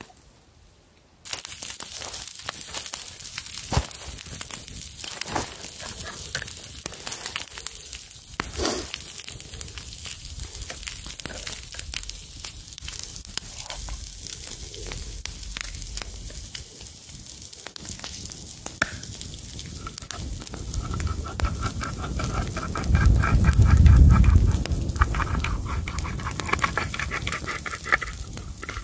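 Wood campfire crackling and hissing, with frequent sharp pops from the burning logs. A low rumble swells briefly late on.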